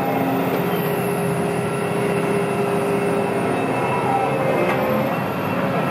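Steady, loud mechanical rumble and grinding with drawn-out metallic squeals, and a faint high whine that rises and falls twice.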